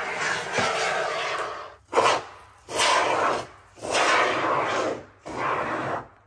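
Aerosol can of polyurethane expanding foam (well-sealing foam) spraying, hissing in five bursts of about half a second to two seconds each, with short breaks between.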